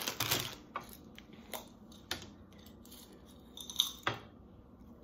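Plastic candy bag crinkling briefly as it is handled, then scattered light clicks, and a short rattle of wooden toothpicks being pulled from a plastic tube container a little under four seconds in.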